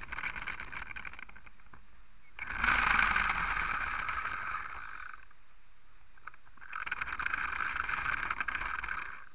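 The plastic gear train of a VEX Robotics Gear Racer rubber-band car whirring with a rapid clicking, in two bursts of about three seconds each, the first starting a couple of seconds in and the second near the end.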